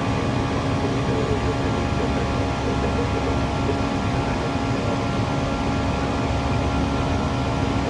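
Steady flight-deck noise of an airliner climbing after takeoff: an even rush of airflow and engine hum, with several faint steady tones running through it.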